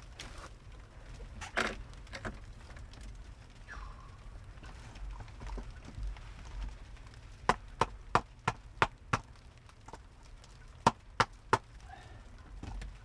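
A run of sharp knocks, six in quick succession at about three a second, then three more a second and a half later, over a low steady rumble.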